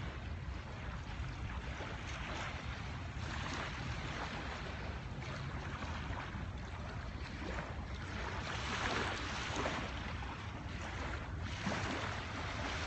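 Ocean waves washing up on a sandy beach in several slow surges, with wind rumbling on the phone's microphone.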